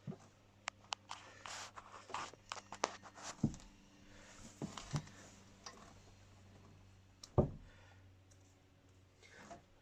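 Scattered metallic clicks and scrapes from hands and tools working on an engine, with two heavier dull knocks, one a few seconds in and one near the end. A steady low hum runs underneath.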